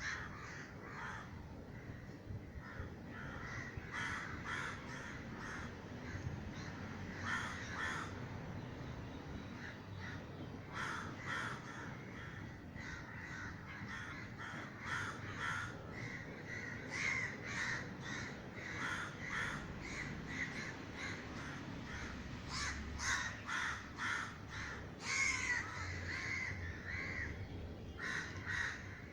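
A flock of crows cawing over one another almost without a break: birds stirred up and alarmed after a crow-scaring gunshot.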